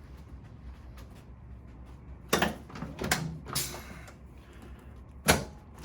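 A few sharp clunks and knocks from the chiropractic treatment table: one about two seconds in, another a second later followed by a short rustle, and a louder one near the end.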